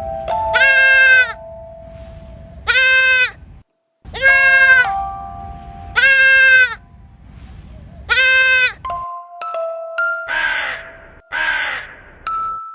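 Goat bleating five times, each a loud high-pitched call of about half a second to a second, with background music of steady bell-like notes. In the last few seconds rougher, harsher calls take over.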